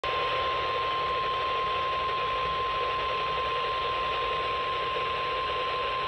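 Reecom NOAA weather radio sounding its steady single-pitch warning alarm tone (1050 Hz) over radio static hiss. The tone signals an incoming tornado warning broadcast.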